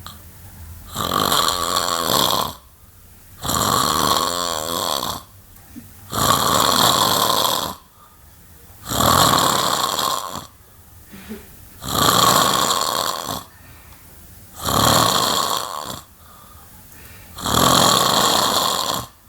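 A man snoring loudly and rhythmically: seven heavy snores, one about every two and a half to three seconds, each lasting about a second and a half, with quieter breathing in the gaps.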